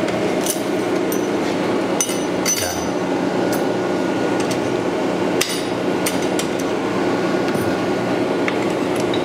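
Forged steel knife blanks clinking sharply against each other, the tongs and the forge's firebrick as they are slid into a hot forge to anneal, a dozen or so separate clinks at uneven intervals. Under them runs the forge's steady rushing hum.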